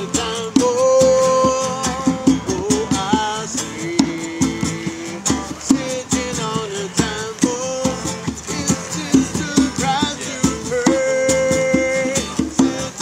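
Live song: a man singing held, sliding notes over a strummed acoustic guitar, with hand-drum percussion keeping the beat.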